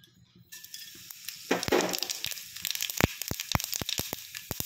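Cumin seeds going into hot oil in an iron kadhai: a sizzle starts, swells as the seeds land, then turns into sharp scattered pops as the seeds splutter in the tempering.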